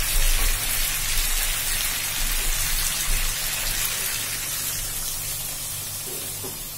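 Hot kadai of spiced chicken and potatoes sizzling and spattering as water is poured in partway through. The hiss gradually dies down as the water cools the pan, over a steady low hum.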